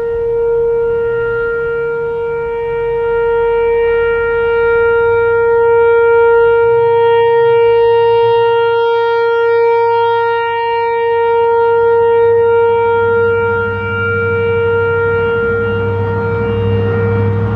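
Whelen Vortex R4 electronic outdoor warning siren sounding its steady alert: one held tone with no rise or fall in pitch, its loudness swelling and fading slowly as the rotating head turns. A low rumble builds under it near the end.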